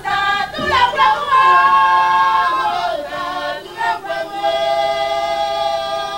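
Unaccompanied singing by an Ivory Coast folk troupe: long held notes that glide up and down, with a short break about four seconds in.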